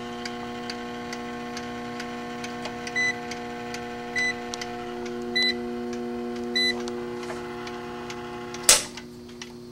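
Schumacher SE-2158 battery charger running: its transformer hums steadily while its mechanical timer ticks faintly. Four short high electronic beeps come about a second apart in the middle, and a sharp click near the end as the volt/amp selector knob is turned.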